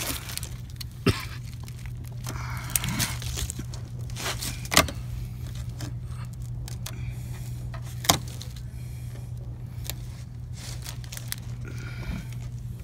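Close handling noise of a rubber lip strip being pressed along a car bumper while its red adhesive-tape liner is peeled off: rustling, scraping and crackling, with three sharp knocks spread through it. A steady low hum sits under everything.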